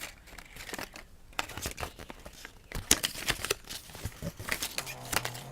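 Plastic toy packaging being handled and opened: an irregular run of crinkling and crackling with small clicks.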